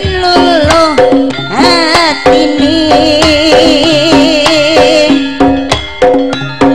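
Javanese gamelan (karawitan) music played live: regular hand-drum strokes over held metallophone notes, with a melody line that slides in pitch and wavers with vibrato.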